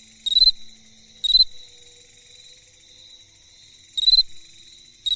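Cricket chirping: four short chirps, each about a quarter second long, at uneven spacing, over a steady high trill in the background. Each chirp is the forewings rubbing together, the hardened scraper on one wing drawn across the row of small teeth on the other (stridulation).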